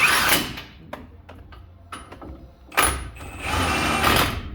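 Power tool driving the brake caliper bolts tight in two bursts, a short one at the start and a longer one of about a second and a half near the end, with small clicks between.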